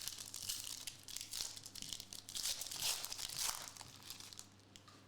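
Trading-card pack wrappers being torn open and crinkled: a run of papery rustling and tearing that dies away about four and a half seconds in.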